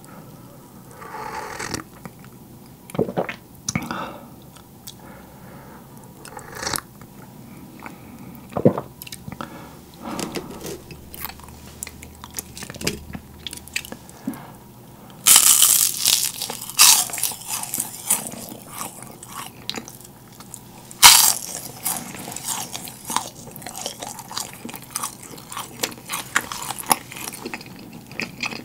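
Yugwa, Korean fried glutinous-rice crackers coated in puffed rice, bitten and chewed close to the microphone. About halfway through comes a loud crisp first bite, a second hard crunch a few seconds later, then steady crackly chewing. Before that there are only a sip of tea and small, scattered mouth sounds.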